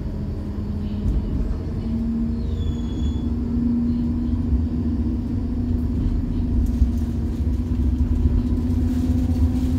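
STIB T4000 tram running, heard from inside the car: a low rumble of the wheels on the rails under a steady hum that rises slightly in pitch about two seconds in.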